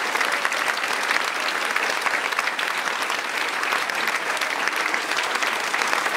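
Crowd of people clapping in steady, sustained applause.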